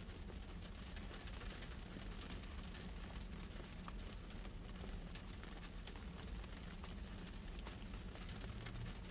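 Soft, steady hiss with scattered light crackles and ticks over a low, steady hum.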